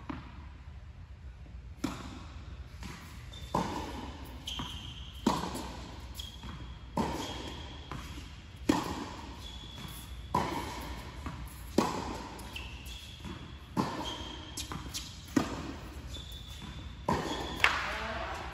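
Tennis rally on an indoor hard court: racket strikes and ball bounces, one impact every second or two, echoing in the large hall, the loudest hits from the nearer player. Short high squeaks of shoes on the court come between the shots.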